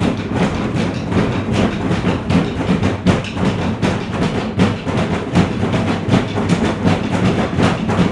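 Rhythmic percussion, a steady run of quick struck beats, about five a second.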